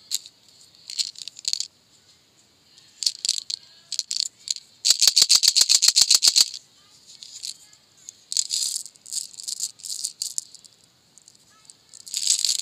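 Small hard candies rattling inside a clear plastic tube as it is handled and shaken. The middle holds a fast, even run of about eight or nine shakes a second, the loudest part. Near the end comes a burst of rattling as the candies spill out into a palm.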